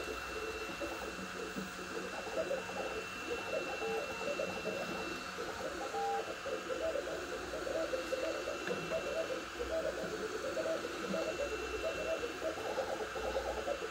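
Sapphire Plus CoreXY 3D printer printing at speed: its stepper motors sing in quick runs of short notes that jump in pitch as the print head changes direction, over the steady hiss of its fans. A faint high whine comes and goes.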